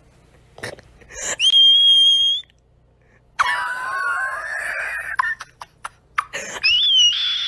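A series of high-pitched, whistle-like squeals: one held high note, then a wavering lower squeal, then another high whistle near the end.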